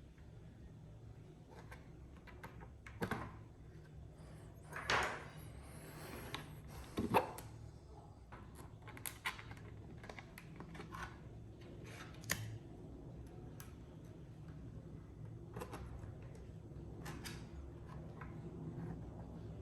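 Scattered light clicks and knocks of small parts being handled and fitted together by hand, with louder scrapes or rattles about 5 and 7 seconds in, over a steady low hum.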